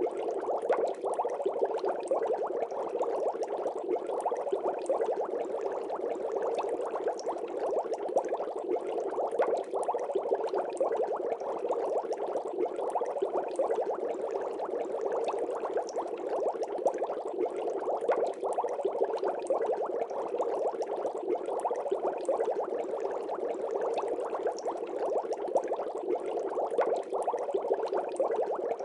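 Continuous aquarium bubbling: a steady, dense fizz of small air bubbles.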